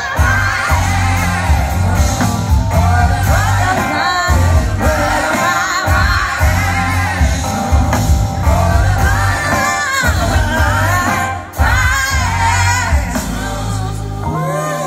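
Live band and orchestra playing a song with a lead singer, with a heavy bass line, heard from the audience seats.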